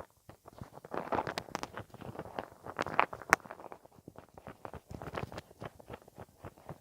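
ASMR mouth sounds close to the microphone: a quick, irregular run of wet clicks, smacks and tongue pops, busiest in the first half, with the sharpest click a little after three seconds in.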